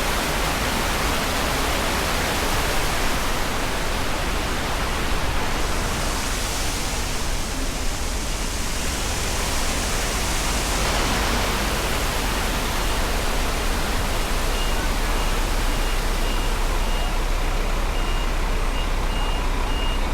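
Steady rushing noise with a low rumble, like traffic or wind. About three quarters of the way in, a vehicle's reversing beeper starts, sounding short high beeps about twice a second.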